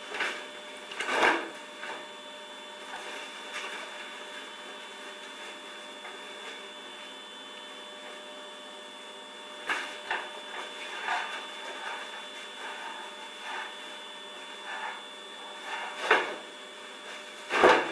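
Thick velour cushion-cover fabric rustling and rubbing in short, irregular spells as the sewn cover is turned right side out by hand, with the louder rubs about a second in and near the end. A steady low hum sits underneath.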